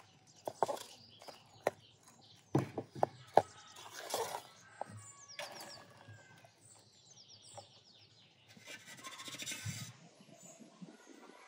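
A metal ladle clinking and scraping against an aluminium pot as chopped walnuts are stirred into syrup, then the syrup-and-walnut mixture pouring out onto a metal tray. Small birds chirp in between.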